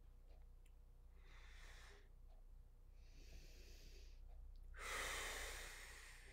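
A woman's breathing while exercising with a light dumbbell: three audible breaths, the last, about five seconds in, the loudest and longest exhale.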